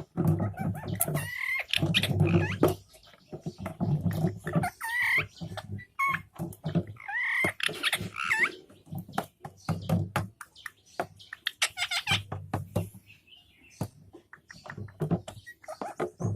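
A parrot calling with short squawks and whistles, several of them rising and falling in pitch, among frequent knocks and rustles.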